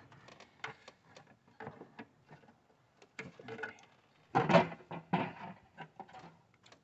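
Scattered light clicks and knocks of hands handling an engine's intake manifold as it is worked loose, with a louder cluster of knocks about four and a half seconds in.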